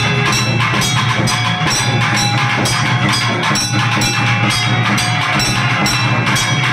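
Loud drum-led music with fast, driving drumming, several strokes a second, over a few steady held tones.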